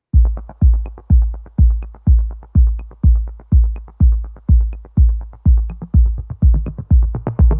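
Background electronic music: a steady deep kick-drum beat about twice a second with light ticks over it.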